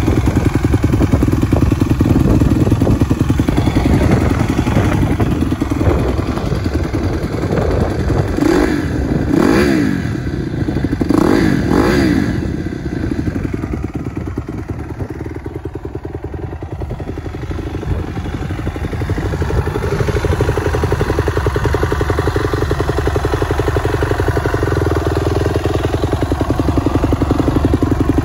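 2013 Honda CRF250R's single-cylinder four-stroke engine idling through its Akrapovic exhaust, revved in two pairs of quick throttle blips about a third of the way through, then settling back to idle.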